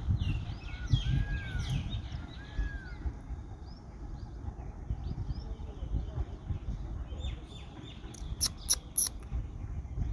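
Small birds chirping and calling repeatedly, with a couple of longer arched whistles in the first few seconds, over a low rumble on the microphone. A few sharp clicks about eight and a half to nine seconds in are the loudest sounds.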